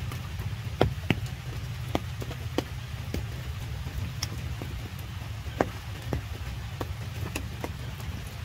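Rain falling, with large drops hitting leaves and puddles as irregular sharp taps over a steady low rumble.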